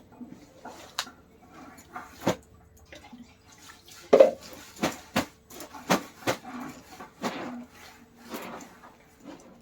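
Clothes being washed by hand: irregular wet slaps, splashes and knocks, the loudest about four seconds in.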